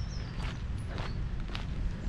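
Footsteps walking on a dirt path, about two steps a second, with a bird's short falling whistle near the start.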